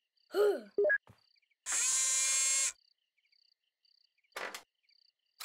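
Cartoon night-time ambience of crickets chirping steadily, with a short vocal sound from a character just after the start. About two seconds in, a loud buzzing sound effect lasts about a second and cuts off suddenly.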